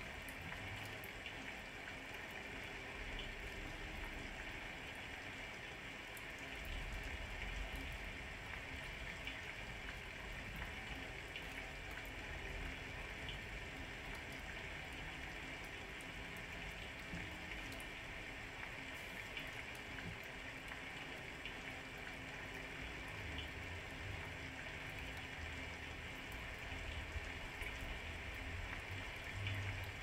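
Steady rain falling, an even hiss with scattered faint drop ticks. A low rumble swells about seven seconds in and again near the end.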